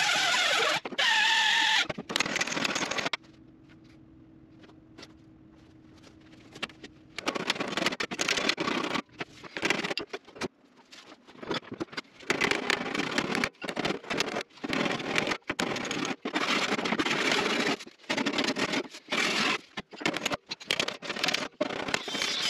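Power grinder working welds on a sheet-metal wheel tub, throwing sparks. A long grinding pass, then a pause of about four seconds with only a faint steady hum, then many short, stop-start grinding passes.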